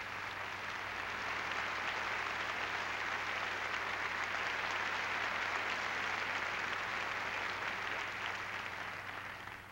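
Theatre audience applauding steadily, the applause fading away near the end.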